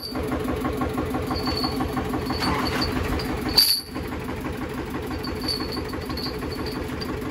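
Diesel tractor engine idling steadily, with a brief break about halfway through.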